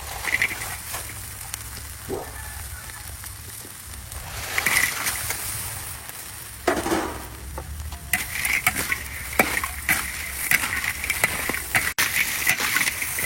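Food frying and sizzling in a pan while a utensil stirs it, with repeated scrapes and clicks against the pan that come thickest over the last few seconds.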